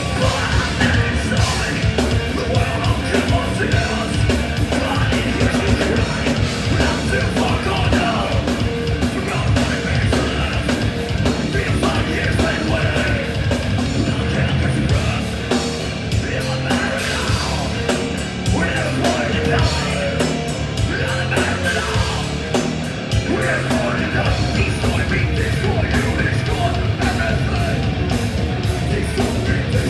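Heavy metal band playing live: distorted electric guitars, bass and fast drums, with shouted vocals.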